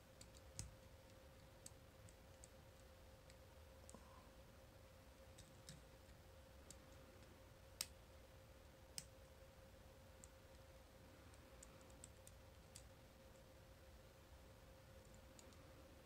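Faint, irregular small metallic clicks of a thin hook pick and tension wrench working the pin stack inside a large brass padlock during single-pin picking, with the two sharpest clicks about eight and nine seconds in. A faint steady hum sits underneath.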